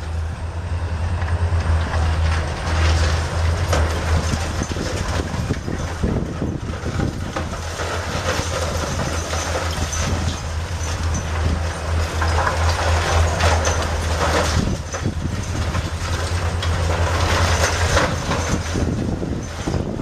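Demolition excavator's diesel engine running with a steady low rumble, under repeated cracks and clatter of concrete and debris breaking away and falling, in several longer crumbling bursts.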